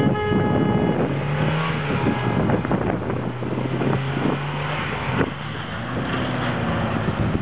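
A car engine revving and easing off as it drives a tight handling course, its pitch shifting up and down. A car horn sounds for about the first second.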